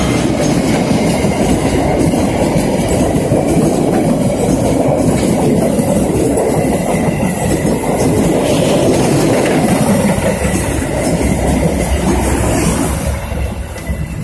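Diesel-hauled passenger train passing close by, its coaches' wheels clattering over the rails in a steady heavy rumble. The sound falls away about thirteen seconds in as the last coach goes by.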